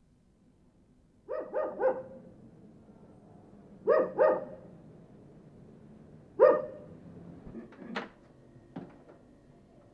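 A dog barking in short groups: three barks, then two, then a single bark, a couple of seconds apart. Near the end come two sharp clicks of a door latch as the front door opens.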